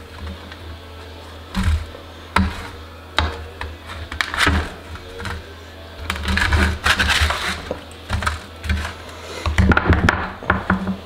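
Spatula scraping and clicking against a metal baking sheet in irregular bursts as baked breaded razor clams are loosened and turned.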